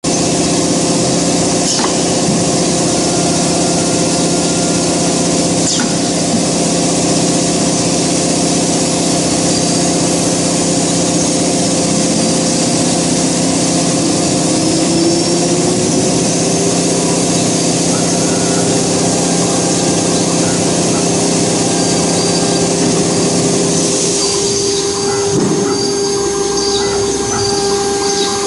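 Multi-head CNC router running, its spindle whining steadily as the bit cuts a wood-based board. About twelve seconds in, one tone rises in pitch; near the end the tones shift and the noise thins.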